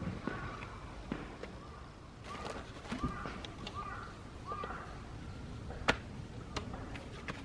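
A bird calling, a short call repeated several times, with a few sharp clicks; the loudest click comes about six seconds in.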